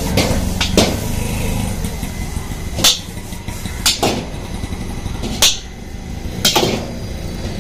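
A metal ladle striking a large iron wok, about six sharp clanks at irregular intervals, over a steady low rumble.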